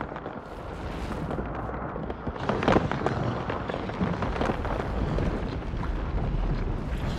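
Film sound effects of an earthquake underground: a deep continuous rumble full of crackling and crashing rock and fire. One louder crash comes about two and a half seconds in.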